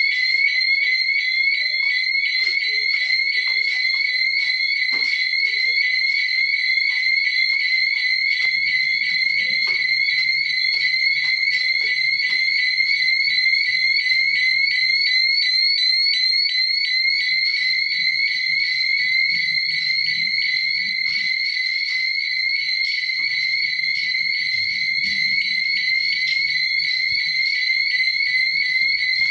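Electronic fire alarm sounder going off without a break: a shrill, high-pitched tone pulsing rapidly and evenly at a steady loudness.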